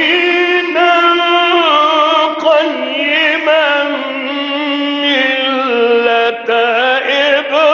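A man reciting the Quran in the slow, melodic tajweed style: one long ornamented vocal line with held, wavering notes and a brief pause about six seconds in.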